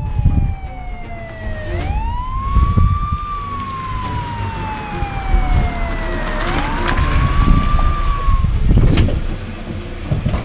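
Police siren wailing: a tone that slides slowly down, then swoops quickly back up, twice over, and fades out about eight and a half seconds in. Irregular low rumbles run underneath.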